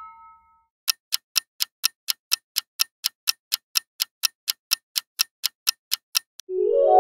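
Clock-ticking sound effect for a quiz countdown timer: sharp, evenly spaced ticks, about four a second, that stop shortly before the end. Just before the end, a rising run of chime-like musical notes starts.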